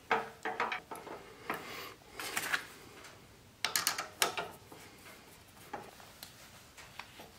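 A bolt being turned with a T-handle hex wrench through a steel handle bracket, giving a handful of short metallic clicks and light scrapes at irregular moments.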